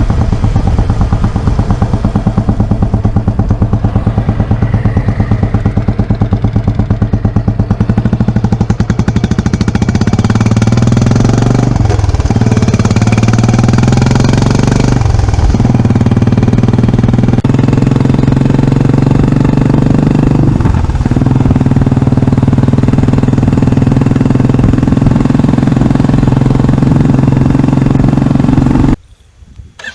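Royal Enfield Classic 350 single-cylinder engine running loud through an aftermarket Indori-style silencer, with its rapid, even exhaust thump. The revs dip briefly and pick up again three times, and the sound cuts off abruptly just before the end.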